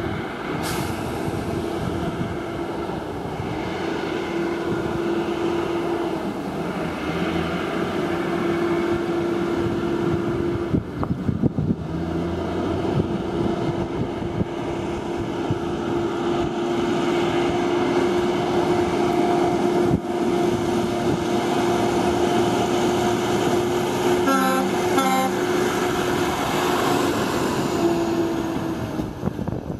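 Ford quad-axle dump truck with a pup trailer approaching and driving past, its diesel engine running steadily and growing louder as it nears. A brief stuttering rattle comes about 24 seconds in.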